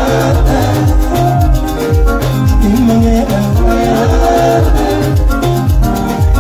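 Live band playing upbeat dance music: a busy, repeating bass line and guitar melody over a steady beat.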